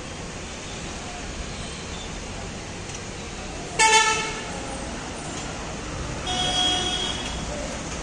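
Road vehicle horns honking over a steady rumble of town traffic: a short, loud blast about four seconds in, then a longer, softer honk lasting about a second.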